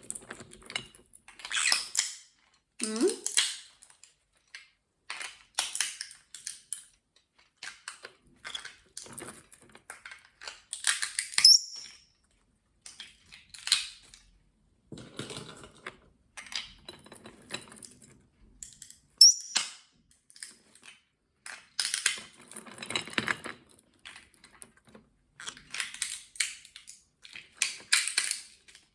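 Walnuts being cracked and picked apart as a green-cheeked conure eats them: irregular sharp clicks and crunches of walnut shell, with a couple of brief high squeaks.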